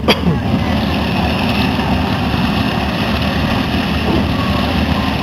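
Avro Lancaster bomber's four Rolls-Royce Merlin V12 engines running as it taxis, a steady low rumble. A short knock at the very start.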